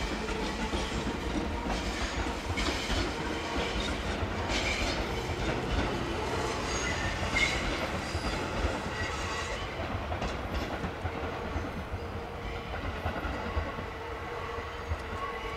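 Tobu Railway electric commuter train running by, steady rumble with irregular clacks of its wheels over rail joints.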